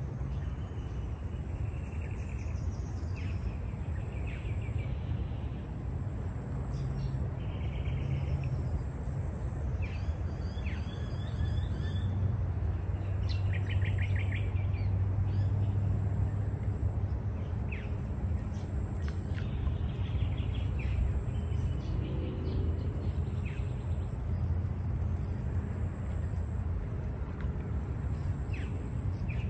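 Outdoor bush ambience: wild birds give short, scattered chirps and trills over a steady low background rumble, with a faint, steady high-pitched whine running underneath.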